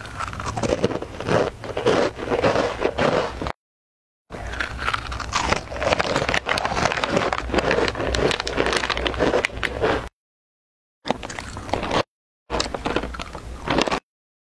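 Crunchy yellow puffed corn ring snacks bitten and chewed close to the microphone, a dense run of crisp crunches. The crunching stops dead several times, where the recording is cut to silence.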